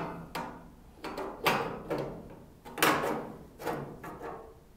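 Bent sheet-metal mock-up piece knocking and clanking against a car grille as it is shifted and pressed into place: several separate knocks, each with a short metallic ring.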